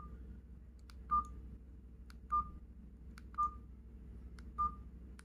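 KGTEL i9 feature phone's keypad tone: short, even beeps about once a second as its keys are pressed, each with a faint click of the button just before.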